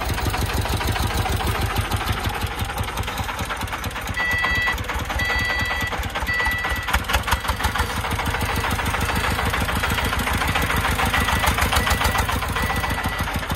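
The 40-horsepower diesel engine of a three-wheeled công nông tipper truck running under load with a rapid, even pulse as the sand-laden truck manoeuvres. Three short high beeps about a second apart come in around four seconds in, and fainter beeps repeat near the end.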